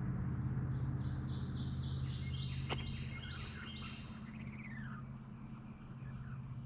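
Creekside ambience: insects keep up a high, steady buzzing drone over a steady low hum. About a second in a bird sings a quick run of descending chirps, with a single click partway through.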